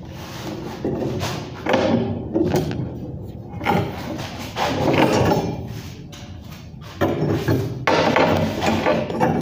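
Steel reinforcing bar being bent by hand into a column tie ring: irregular clanks and scraping of metal.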